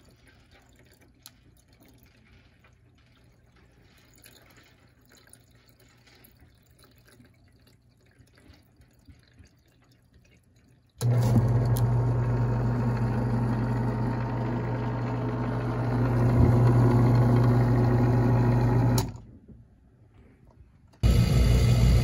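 Condensate pump on an air-conditioning drain, its reservoir topped up with water. About halfway through its small electric motor kicks in with a sudden loud hum and runs for about eight seconds while it pumps the water out, then stops. Before it starts there is only a faint trickle of water; just before the end another loud, steady noise begins.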